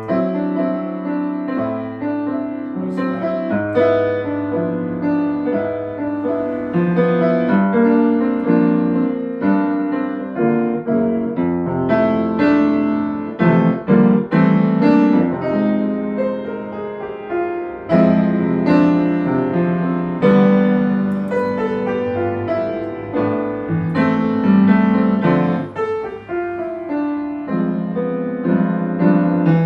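Piano played without a break: chords and melody lines with frequent new notes.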